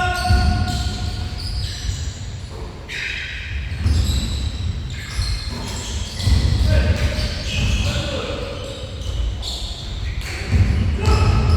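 A basketball bouncing on an indoor court during a game, with players' voices calling out in a large gym.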